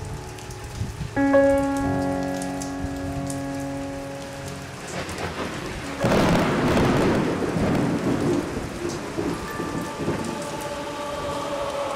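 Rain falling, with a thunderclap about six seconds in that rumbles on for several seconds. A chord of held tones starts abruptly about a second in and fades out before the thunder.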